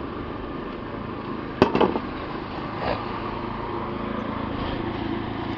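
Handling noise from working among plastic bags of feed ingredients: one sharp click about a second and a half in, followed by a few quick softer ticks and another faint one a second later, over a steady low hum.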